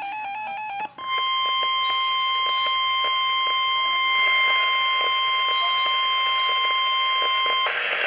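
Weather alert radio sounding a tornado warning through its small speaker: a fast warbling two-pitch beep for about the first second, then the long steady NOAA Weather Radio warning alarm tone, which cuts off shortly before the end.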